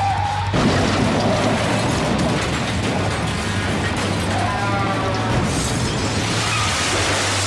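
Turbocharged V6 single-seater racing car engines at speed, heard as onboard race audio: a loud, dense, steady racket, with engine notes gliding up and down in pitch now and then.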